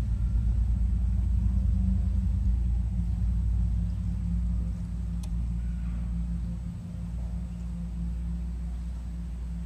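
Low, rumbling drone of contemporary ensemble music: sustained deep tones from bass tuba, double bass and live electronics, with a fluttering rumble underneath that eases a little about halfway through.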